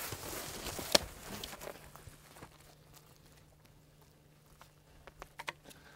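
Footsteps and rustling in dry leaves and brush, busiest for the first two seconds with a sharp crack about a second in, then dying down to a few scattered clicks.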